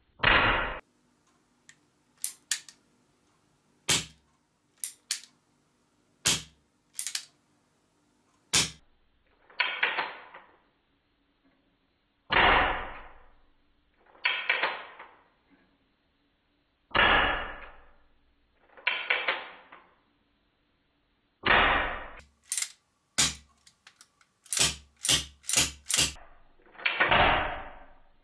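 Marushin X-Cartridge Super Blackhawk gas airsoft revolver firing about eight shots a few seconds apart, each a loud pop with a short fading tail. Between shots come sharp metallic clicks of the single-action hammer being thumbed back and the cylinder turning.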